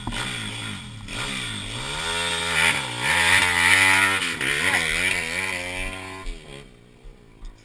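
Pit bike engine revving up and down as the bike pulls away, its revs rising and falling several times, then dropping away about six seconds in.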